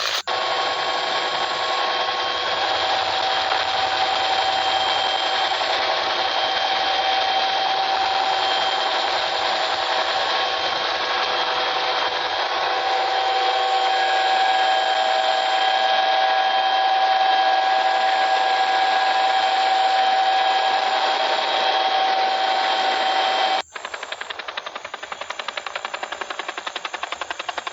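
Helicopter running: a loud, steady mechanical noise with a high whine over it. Near the end it cuts off abruptly into a quieter, fast, even pulsing of the rotor blades.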